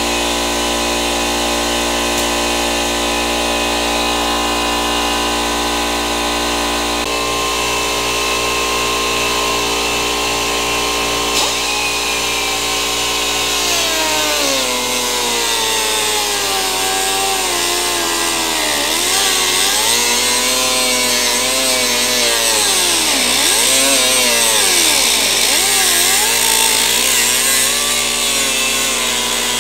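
Angle grinder running continuously with a steady motor whine. From about halfway on, its pitch dips and recovers again and again as it is pressed into the metal.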